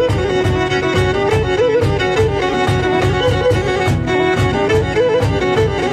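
Background music: a bowed string melody with quick trills over a fast, steady beat.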